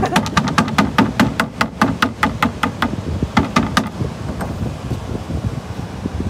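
Metal meat-tenderizer mallet pounding a piece of octopus on a plastic cutting board, tenderizing it for bait: quick knocks about five a second, which stop about four seconds in.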